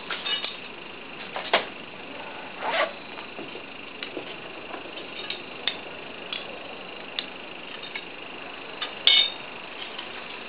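Scattered light clinks and clicks of hard objects over a steady hiss, with a louder clatter about nine seconds in.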